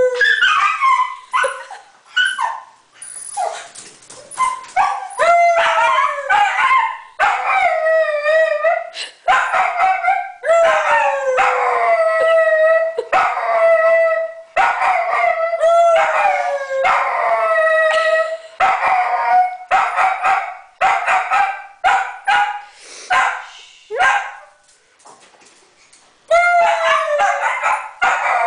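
Dachshund howling over and over, each howl sliding down in pitch, broken by sharp yips. The howls die away briefly near the end, then start up again.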